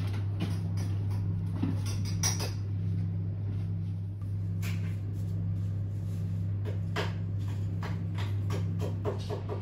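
Restaurant table sounds: scattered clinks and knocks of dishes and cutlery over a steady low hum.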